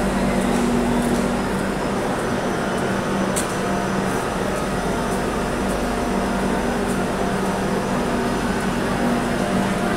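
Steady mechanical hum of a standing passenger train, two low steady tones over a constant din, heard along a busy railway platform. A single short click about three and a half seconds in.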